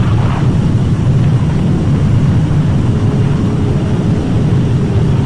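Tornado winds buffeting a camcorder microphone: a loud, steady low rumble with no letup. A faint steady hum joins about three seconds in.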